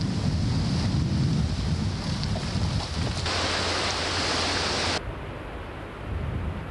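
Small waves washing onto a sandy beach, with wind buffeting the camcorder microphone as a low rumble. About five seconds in, the sound cuts off abruptly to quieter wind noise.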